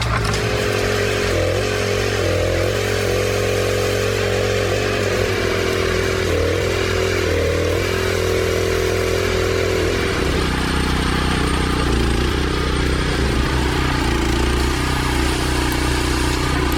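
Engine of a wood-processing machine running steadily, its pitch wavering, with a change in the sound about ten seconds in.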